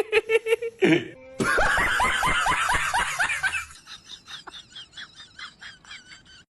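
Laughter: quick, rhythmic ha-ha pulses, about five a second. A cut about a second and a half in brings a louder run of them, which turns much softer after about two seconds.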